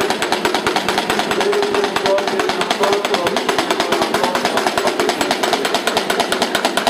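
A steady, fast mechanical-sounding rattle of about ten clicks a second, with faint voices beneath it.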